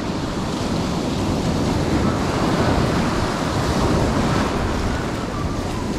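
Ocean surf washing onto the beach, a steady rush of noise, with wind buffeting the microphone.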